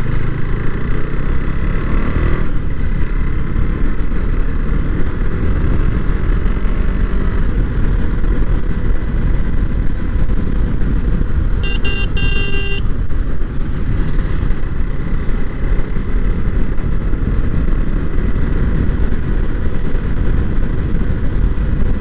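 A motorcycle being ridden on the road, with a steady rush of engine and road noise. Near the middle a horn sounds once for about a second.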